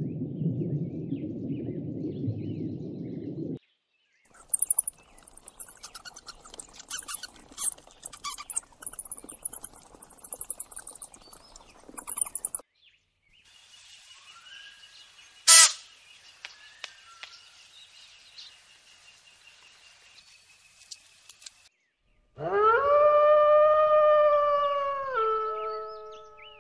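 A run of separate animal recordings: a low rushing noise, then a stretch of rapid clicks and hiss, then faint calls with one sharp squeal, then a jackal howling. The howl is a long call with rich overtones that starts about four seconds before the end and steps down in pitch near the end.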